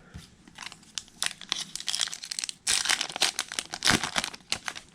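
Topps Chrome trading-card pack's foil wrapper being torn open and crinkled in the hands: a fast run of sharp crackles that gets louder a little past halfway.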